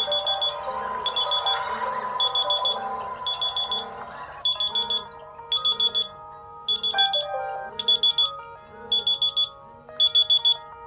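Several smartphone alarms ringing at once. A high electronic beeper sounds in bursts of quick pips about once a second, over a melodic alarm tune whose notes change to a different pattern about four seconds in.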